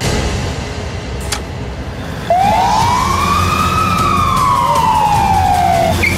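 Background music with a steady deep bass. About two seconds in, a single loud siren-like wail cuts in, rises in pitch, then slowly falls away before the end.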